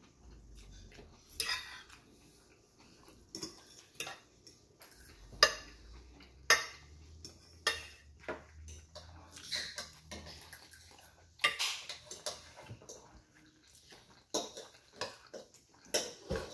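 Metal fork clinking and scraping against a ceramic plate while eating: irregular sharp clinks and a few short scrapes.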